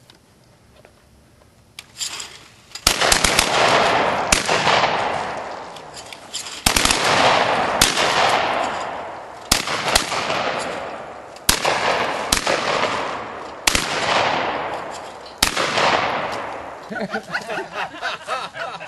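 Shotguns firing at clay targets: about a dozen shots, some single and some in quick pairs, beginning about two seconds in. Each shot leaves a long rolling echo that fades before the next one.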